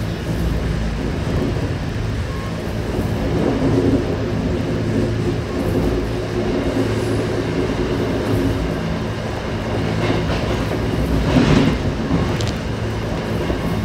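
MBTA commuter rail train running along the track, heard from on board: a steady rumble with a low hum. A louder knock comes about eleven seconds in.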